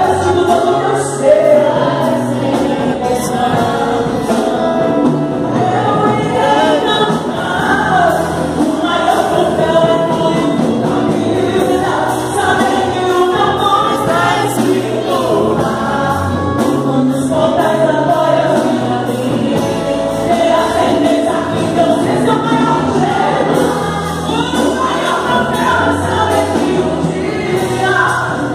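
Live gospel worship song: a woman singing lead with women backing singers, over a band with drums.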